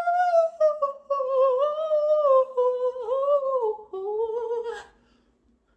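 A person humming a slow, high-pitched melody with no accompaniment, the tune drifting gradually downward before stopping near the end.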